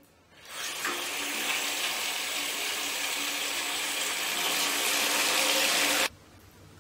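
Water gushing steadily from a bathtub faucet as the tap is turned on, swelling in about half a second in and cutting off abruptly near the end.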